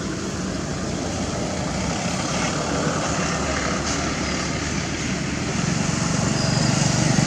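A steady low rumble of outdoor background noise, swelling a little near the end.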